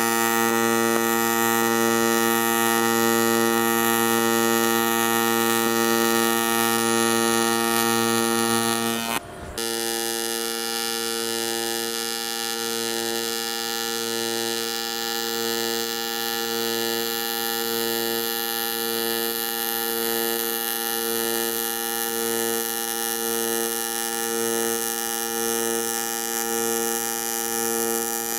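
AC TIG welding arc on aluminum plate, a steady electric buzz. It breaks off briefly about nine seconds in, then carries on a little quieter.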